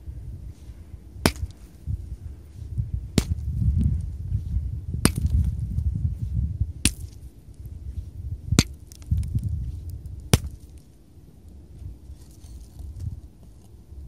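Sledgehammer blows, six sharp strikes spaced nearly two seconds apart, over a low rumbling noise.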